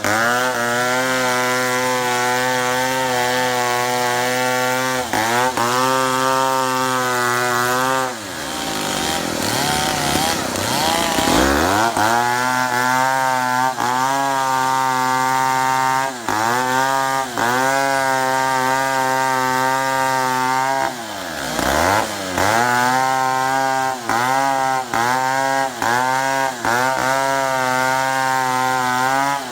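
Chainsaw running at high revs while cutting wood. Its pitch dips repeatedly and climbs back as it loads up in the cut, with a deep slowdown and recovery about eight seconds in and a shorter one about twenty-one seconds in.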